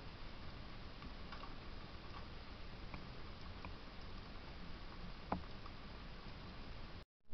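Faint, irregular small clicks of a gray squirrel gnawing peanuts in a wooden feeder, over a steady outdoor hiss, with one sharper click about five seconds in. The sound cuts out suddenly shortly before the end.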